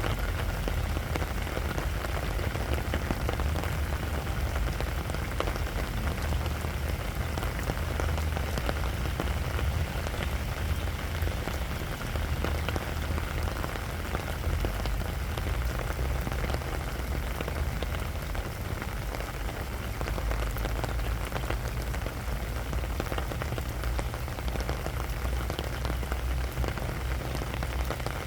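Gentle rain falling steadily on sand, a dense, even patter of drops over a steady low rumble.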